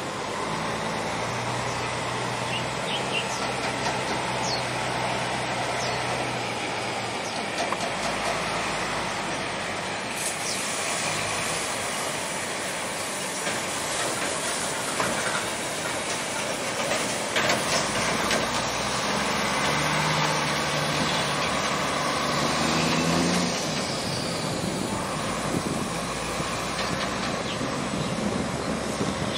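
Steady engine rumble over a constant outdoor noise, with the engine's low tone shifting in pitch a few times.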